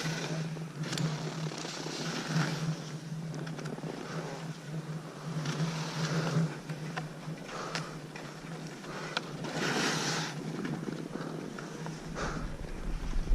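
Skis scraping and hissing over snow in a series of turns, the rushes swelling and fading every few seconds, with a few sharp clicks and a steady low hum underneath.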